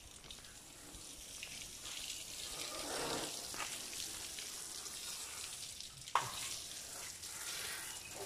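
Water from a garden hose spraying onto a car's wheel and wheel arch: a steady hissing splash that builds up about two seconds in. A single sharp knock comes about six seconds in.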